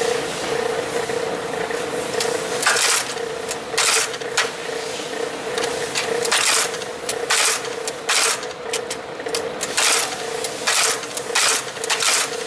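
Graphotype embossing machine being typed on: its motor hums steadily while each keystroke stamps a letter into a metal plate with a sharp clunk, about a dozen strikes at an uneven pace.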